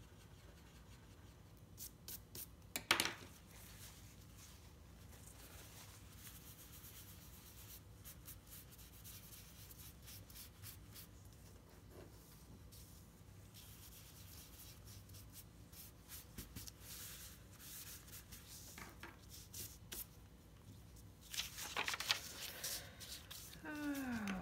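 Faint graphite pencil strokes and tissue rubbing across drawing paper, blending the shading. There are brief louder rustles of paper and tissue about three seconds in and near the end.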